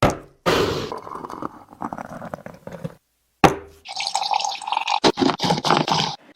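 Liquid pouring and dripping in a kitchen, in several short clips that start and stop abruptly.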